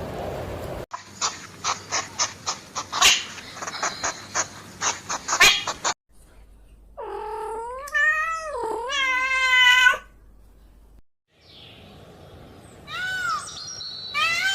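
Several different animal calls in a row: a quick series of sharp clicking calls, then one long wavering call of about three seconds, then short calls that rise and fall, repeated near the end.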